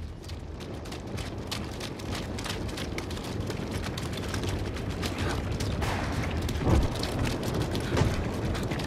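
A war soundtrack: a dense crackle of gunfire that grows steadily louder, with two heavy booms, one about two-thirds of the way through and one near the end.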